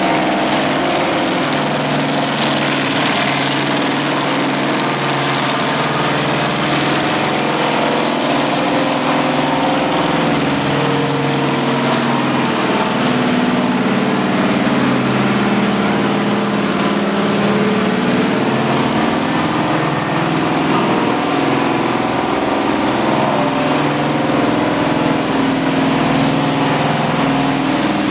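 Engines of a slow column of WWII military vehicles driving past: a Sherman tank, then jeeps and a half-track, with a motorcycle going by close about halfway through. A steady, unbroken mix of engines running.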